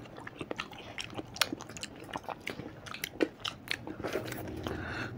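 Close-miked mouth sounds of people eating ice cream: wet lip smacks, licking and slurps with occasional crunchy bites, coming as many irregular short clicks.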